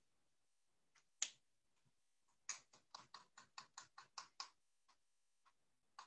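Faint computer keyboard typing: a single key click, then a quick run of about ten key taps over two seconds, and a few more taps near the end.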